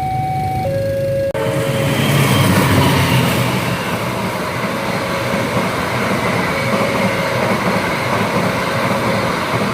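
An electronic level-crossing alarm sounds, switching between two tones, then cuts off about a second in. A train follows, passing close by with a loud, steady rumble and rolling noise that is loudest a second or two later.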